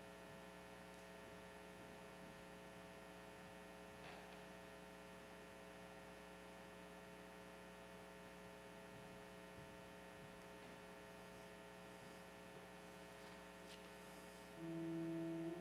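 Low, steady electrical hum of a microphone and sound system in a quiet pause. About a second before the end, a keyboard starts playing sustained chords, the introduction to the sung responsorial psalm.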